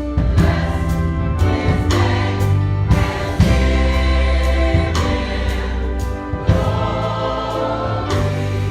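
Church choir singing a gospel song in held, full chords over a deep bass line, with regular sharp accompanying strikes.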